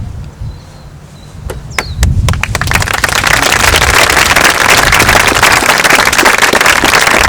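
Audience applauding: a few scattered claps, then about two seconds in a full, dense round of clapping.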